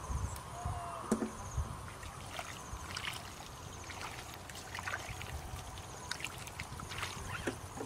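Hands sloshing and splashing in shallow muddy water, groping along the bottom for fish, with scattered short wet squelches and splashes.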